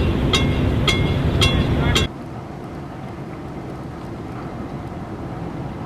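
A loud low rumble with a ringing signal striking evenly, about two strikes a second, four times, both cutting off about two seconds in. Then a quieter steady rumble with wind on the microphone, from a sand-laden river barge under way.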